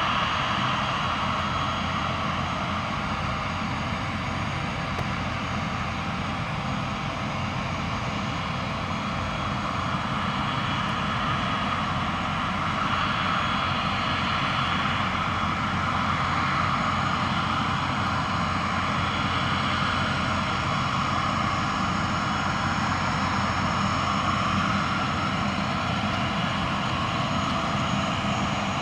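Boeing 767-300ER's twin jet engines running at low taxi thrust: a steady whine over a rumble, swelling slightly a little under halfway through.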